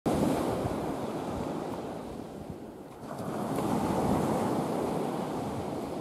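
Sea surf washing onto a sandy beach, a steady rushing wash that eases about halfway through and then swells again, with wind buffeting the microphone.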